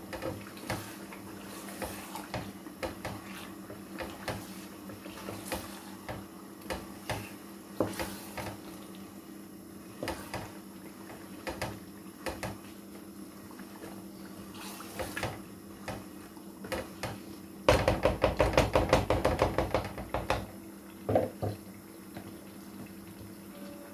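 Wooden spoon stirring a thick stew in a metal pot, with scattered clicks and knocks of spoon against pot over a steady low hum. About eighteen seconds in comes a rapid run of taps lasting a couple of seconds, the loudest part, followed by two sharp knocks.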